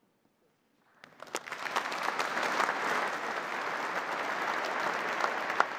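Applause from a large congregation breaks out about a second in, quickly builds and then holds steady.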